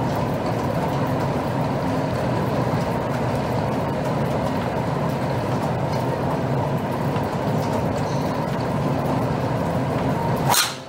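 A steady background rumble, then near the end a single sharp crack as a driver's clubhead strikes a golf ball off the tee.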